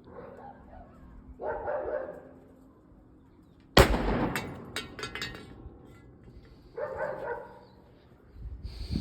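A single gunshot from a Ruger Blackhawk .357 Magnum revolver: one sharp, loud report nearly four seconds in, with an echoing tail. A dog barks twice before the shot and once again about three seconds after it.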